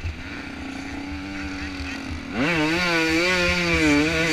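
Dirt bike engine in a motocross race, running at a low steady pitch off the throttle. About two seconds in the throttle opens and the revs jump up, then hold high with a wavering pitch. A constant low rumble of wind and track buffeting runs underneath.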